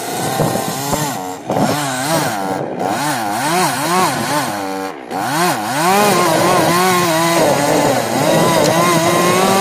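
Chainsaw cutting into the trunk of a Douglas fir, its engine pitch swinging up and down as the chain works through the wood. About five seconds in it eases off for a moment, then runs at a steadier high speed.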